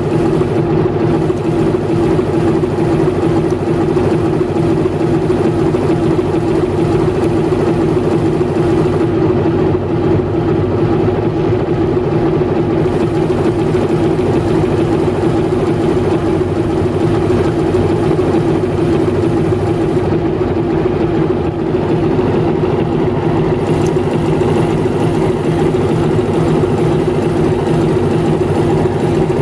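TEM18DM diesel shunting locomotive standing still with its diesel engine idling, a steady unchanging hum throughout.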